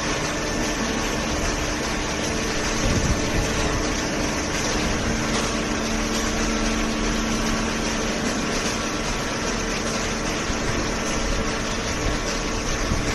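High-speed OCC cardboard baler running: a steady mechanical hum and rush with several constant tones, typical of the baler's hydraulic pump and drive motor at work.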